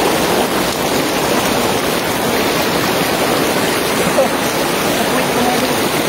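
Rushing water of a shallow rocky stream, a steady, even wash of noise.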